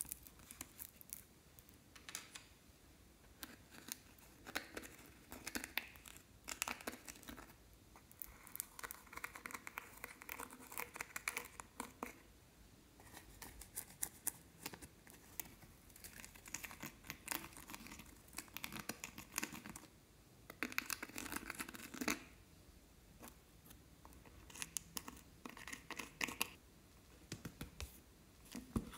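Fingertip scraping pressed glitter eyeshadow out of a palette's pans: bursts of scratching and crackling with short pauses between.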